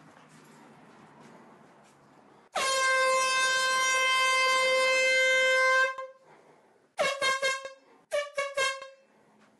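Handheld canned air horn sounding one long steady blast of about three seconds, then a string of short, quick toots.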